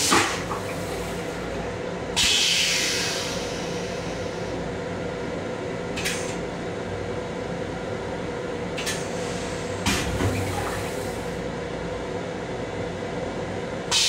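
Train toilet with a stainless-steel bowl going through its flush cycle: a series of short hissing water sprays and clicks, the longest and loudest a hiss of about a second, about two seconds in. Under it runs the steady hum of the railcar.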